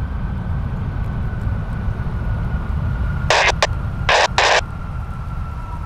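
Jet airliner engine noise: a steady low rumble with a high whine that slowly drops in pitch. About three seconds in, an airband scanner radio gives a few short, loud bursts of static as its squelch opens and closes.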